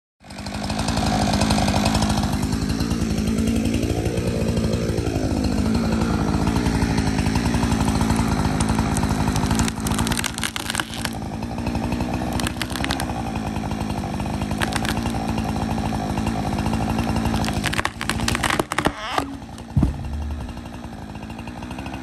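Chainsaw engine running steadily, rising and falling in pitch once a few seconds in. About halfway through come sharp cracks as the tree's hinge wood gives way, and just before the end the felled tree crashes to the ground with heavy thuds, the loudest sounds.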